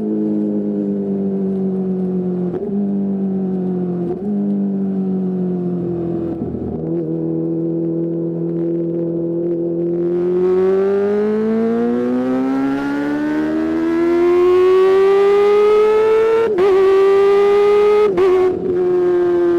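Kawasaki ZX-25R's 250cc inline-four engine running at high revs through a DX Generation Pro Race exhaust. The pitch sags slowly with a few brief dips, then rises steadily for about six seconds before two sharp breaks in the note near the end.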